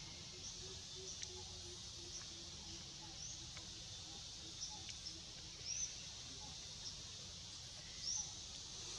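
Faint forest ambience: a steady high hiss with short, rising high-pitched bird chirps repeating every second or two, the strongest near the end.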